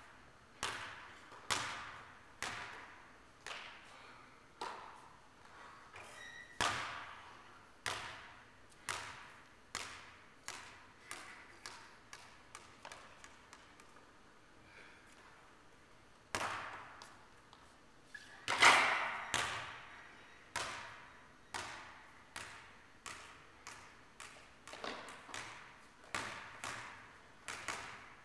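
Basketball bouncing on a gym floor, a long run of single thuds echoing in a large hall, each bounce ringing on. One much louder bang comes about two-thirds of the way in, and after it the bounces come quicker and closer together.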